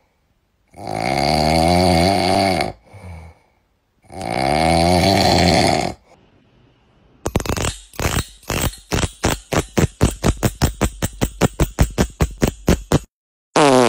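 A sleeping kitten snoring: two long snores of about two seconds each, with a wavering pitch. Then a quick run of sharp clicks from a plastic comb, speeding up to several a second.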